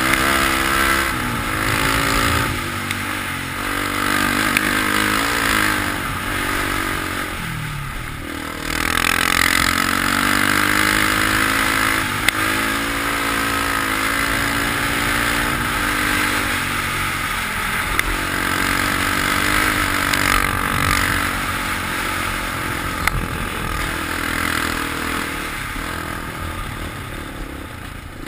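Quad bike engine running under load as it is ridden, its pitch rising and falling with the throttle. It eases off briefly about eight seconds in, then pulls again.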